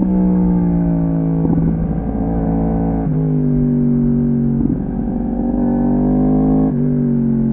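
Yamaha R1's crossplane inline-four engine running under way in second gear, its note falling in pitch in sudden steps about three seconds in and again near the end as the throttle comes off.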